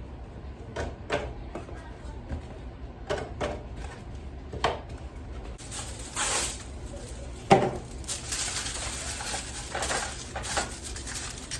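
Pans and utensils knocking and clattering a few times, the loudest knock a little past halfway. From a little before halfway, the hiss of an aerosol cooking spray being sprayed onto a pan in several bursts.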